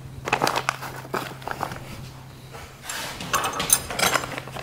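Small steel drum-brake hardware (return springs, hold-down pins and clips) clinking and rattling as it is handled and fitted to a brake shoe on a workbench. It comes in two spells of quick light clicks, over a steady low hum.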